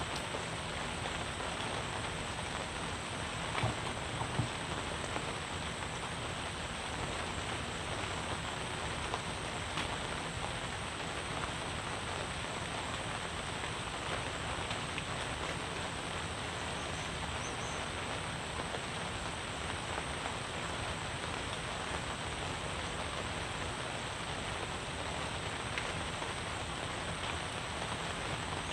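Steady rain falling, an even hiss throughout, with a couple of faint knocks about four seconds in.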